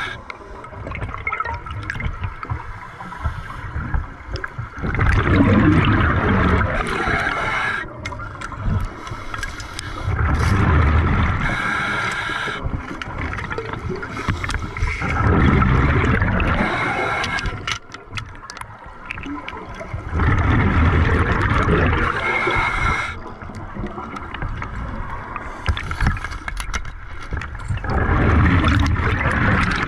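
Scuba diver breathing underwater through a regulator: a gurgling rush of exhaled bubbles about every five seconds, five times, each lasting two to three seconds, quieter in between.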